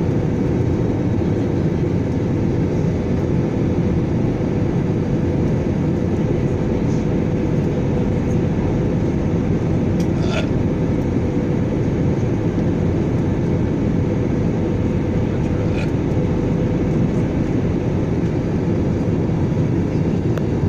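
Steady roar of a jet airliner's wing-mounted turbofan engine heard inside the cabin: a low, even rush with a faint steady hum. A couple of faint brief clicks come about halfway and near three-quarters of the way in.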